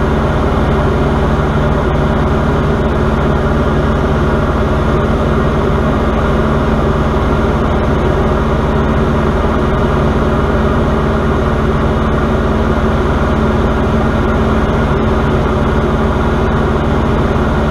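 Diamond DA40 single-engine propeller airplane in flight, its engine and propeller making a loud, steady drone heard inside the cockpit.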